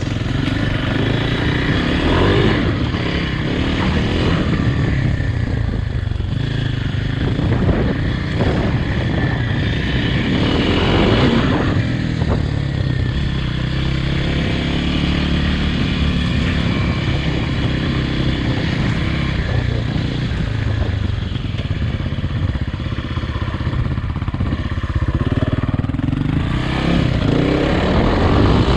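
Kawasaki KLX300R dirt bike's single-cylinder four-stroke engine running under way, revving up and easing off several times as it is ridden.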